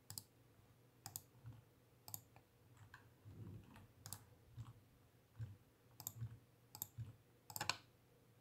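Faint computer mouse and keyboard clicks, roughly one a second, with a few in quick succession near the end.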